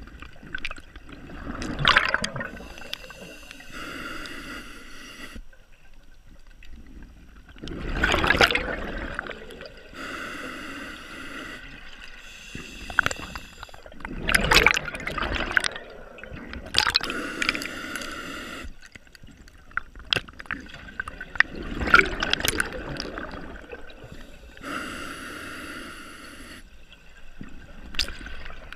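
Scuba diver breathing through a regulator, slow and regular: a hissing inhale with a faint whistle, then a loud gurgling rush of exhaled bubbles, about four or five breaths.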